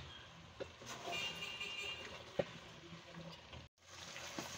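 Wooden spoon stirring raw cauliflower florets into fried beef in a steel pot, with a few light knocks of the spoon against the pot, over a faint background in which a brief high tone is heard about a second in.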